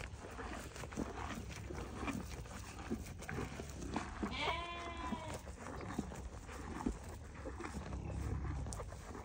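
Cattle munching dry hay at a hay feeder close to the microphone: crunching, chewing and rustling straw. About four and a half seconds in, an animal gives one short, high call lasting about a second.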